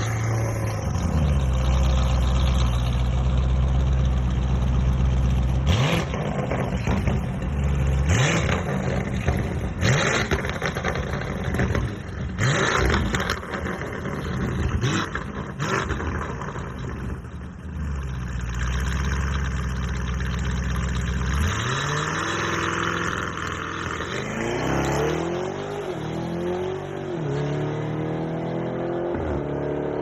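Lamborghini Urus twin-turbo V8 engine and exhaust running at a steady idle, with a few sharp throttle blips in the middle. Over the last third it is revved again and again, its pitch climbing and falling with each rev.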